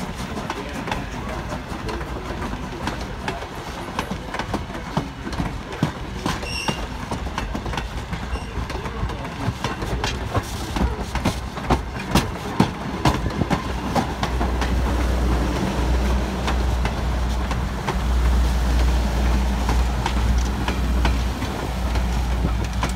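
Strasburg Railroad passenger coaches rolling past close by, their steel wheels clicking over the rail joints, the clicks thickest in the middle. A heavier low rumble takes over from about fourteen seconds in.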